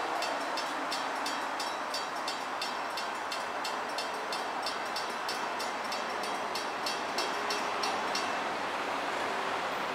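Distant approaching freight train led by GE diesel locomotives: a steady, even noise. A fast, even high ticking, about three or four a second, runs alongside and stops about eight seconds in.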